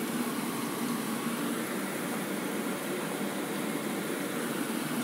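Hot oil sizzling and bubbling steadily as slices of marinated pork tenderloin deep-fry in a pot.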